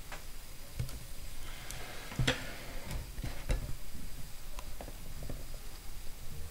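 A few faint, scattered clicks and light knocks from a camera being picked up and handled, a couple of them a little louder.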